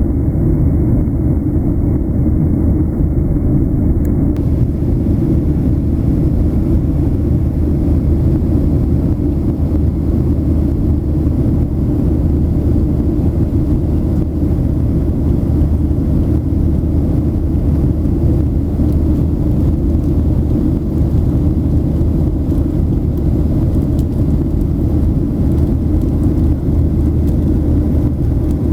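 Steady low drone inside a passenger airliner's cabin: engine and airflow noise, even and unchanging.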